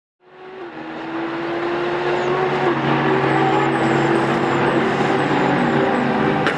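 Panoz Esperante GTR-1's Ford/Roush 6.0-litre V8 racing engine running at a steady pitch, growing louder over the first couple of seconds and then holding a loud, even note.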